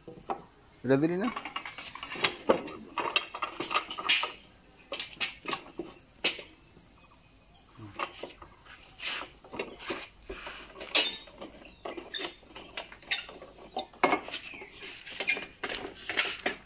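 Irregular sharp knocks and clinks of carpenters' hand tools working wood, over a steady high drone of crickets.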